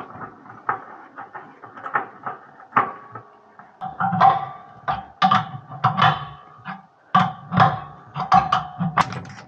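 Metal tools and brass fittings clinking and scraping as a safety group is screwed onto the water heater's cold inlet and tightened with a spanner. Many of the knocks ring briefly, and they come thickest in the second half.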